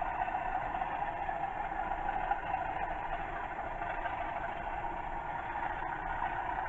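Recorded Class 37 diesel engine idle sound played by Hornby TTS sound decoders through the small speakers of model locomotives, running steadily with no change in speed.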